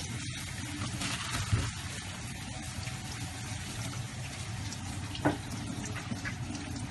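Kitchen tap running into a stainless-steel sink as whole mackerel are rinsed by hand, the water splashing off the fish. Two brief knocks, about a second and a half in and again about five seconds in.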